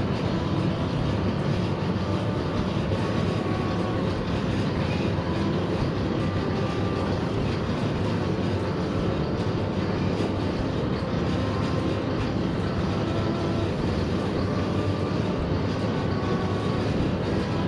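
Motorised noodle-making machine (mesin giling) running steadily, a continuous mechanical drone with a few faint steady whining tones over it.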